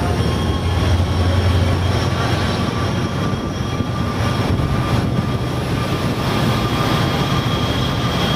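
Amtrak Pacific Surfliner bi-level passenger cars rolling past, a steady rumble of wheels on rail with a faint steady whine above it.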